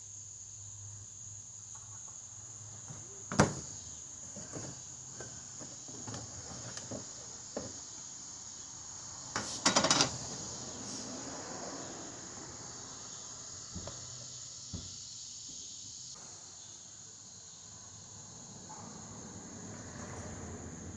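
Insects trilling steadily in one high tone, with scattered clicks and knocks. The loudest is a sharp knock about three and a half seconds in, and there is a short rattle around ten seconds in.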